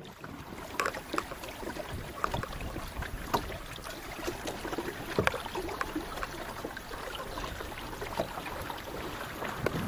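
Water lapping at the hull of a small sailboat ghosting in light air, with many small irregular splashes and ticks.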